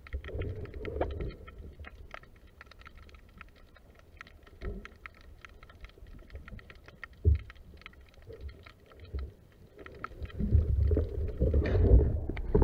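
Underwater sound picked up through a camera's waterproof housing: scattered faint crackling clicks over a low rumble of water moving against the housing, with a single sharp knock about seven seconds in. The rumble grows louder and denser from about ten seconds in as the diver swims forward with the speargun.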